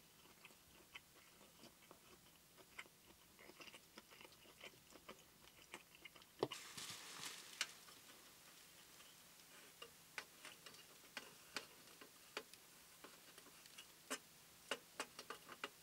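Near silence broken by faint, irregular clicks and ticks, a few every couple of seconds. About six and a half seconds in comes a louder clack, followed by a brief hiss.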